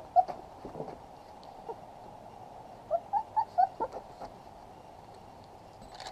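Three-week-old puppies giving short high squeaks: one just after the start, then a quick run of four or five about three seconds in.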